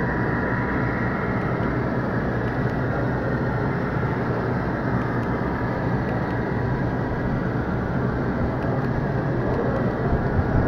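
HO scale model freight train's cars rolling past on the track: a steady rumble of small metal wheels on the rails, with faint ticking over the rails.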